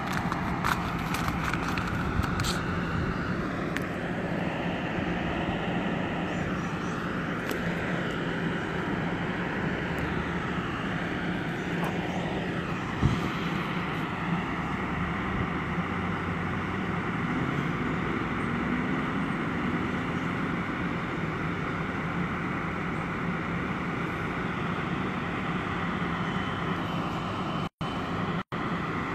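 Steady drone of an idling vehicle engine, a constant low hum under outdoor noise, with one sharp knock about 13 seconds in.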